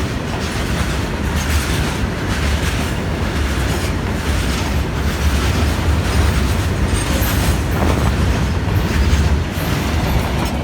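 Indian Railways goods train's wagons rolling past on the rails: a steady heavy rumble with wheel clatter, and a few faint high wheel squeaks in the second half.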